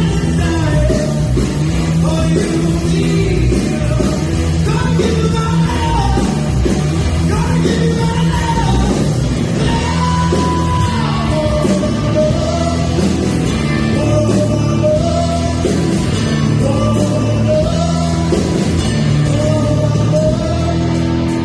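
Live rock band playing a song with a singer, the vocal melody carried over loud, steady guitars, bass and drums.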